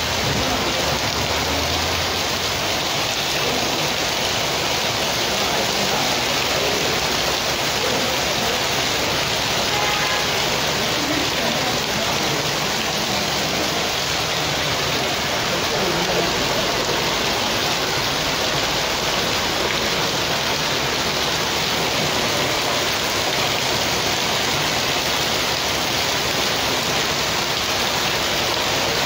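Heavy rain pouring steadily onto a street and parked cars, an even hiss.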